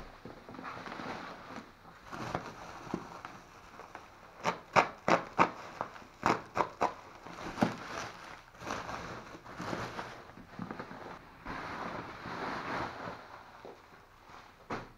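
Bubble wrap and plastic packaging being handled and pulled apart, crinkling and rustling, with a run of sharp crackles from about four and a half to eight seconds in.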